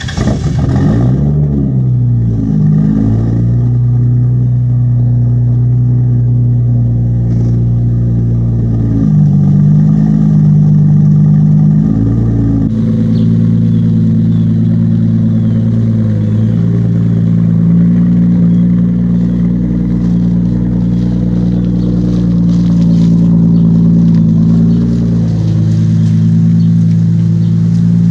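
Toyota Supra's 2JZ-GTE twin-turbo straight-six running just after a start: the revs fall to a steady idle in the first couple of seconds, with a brief dip and rise about nine seconds in. Near the end the car creeps past at low speed.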